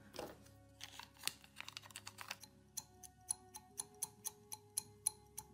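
Short scratching strokes of a tool scraping paint off a 3D-printed figure part, roughing the surface so glue will hold. The strokes come irregularly at first, then in a steady run of about four a second from about halfway in.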